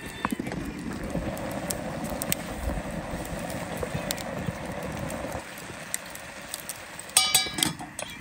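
Wood fire crackling under a pot of stew on a grill. Near the end comes one short, loud, ringing clatter.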